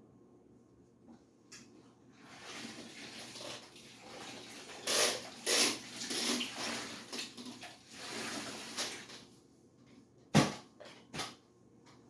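Water splashing and running in uneven surges during cleaning, followed near the end by two sharp knocks.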